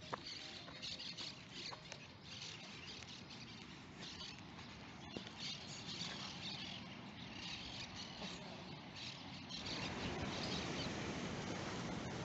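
Birds chirping over open-air ambience; about ten seconds in, the steady rush of water churning and foaming below a bridge comes up and takes over.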